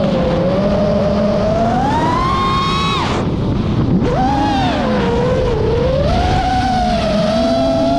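FPV quadcopter's electric motors and propellers whining, the pitch rising and falling with the throttle. The whine climbs, cuts off suddenly about three seconds in, and comes back with a quick rise a second later, over a low rush of wind on the microphone.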